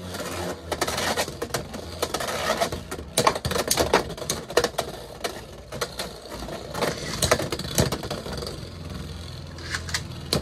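Two Beyblade X spinning tops, Tyranno Beat 4-80 Rush and Knight Mail 9-60 Free Ball, whirring in a plastic stadium with rapid clacking as they collide with each other and the stadium wall. The clashes thin out in the last couple of seconds, leaving a steadier whir as both tops spin near the centre.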